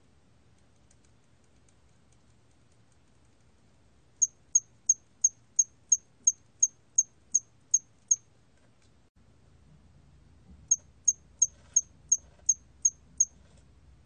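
Hairy cricket (털귀뚜라미) singing its calling song at 27 °C: two runs of short, high chirps at about three a second, twelve in the first and eight in the second after a pause, with a few faint ticks before them.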